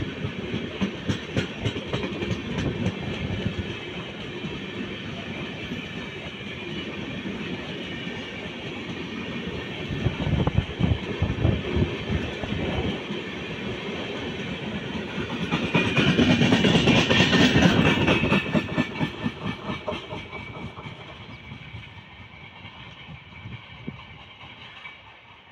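Passenger train of LHB coaches running through at speed: fast, even clickety-clack of the wheels over the rail joints. It swells to a louder rush about two-thirds of the way through, then fades away as the last coaches pass.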